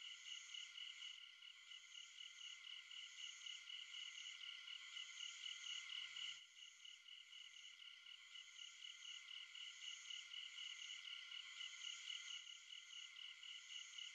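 Faint chorus of calling frogs, a nature-sound layer in an ambient mix: a steady high-pitched chirring that pulses several times a second, with a brief low blip about six seconds in.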